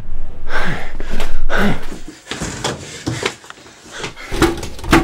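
Two loud, short vocal outbursts from a frightened man, then a rapid run of knocks and bangs against a door.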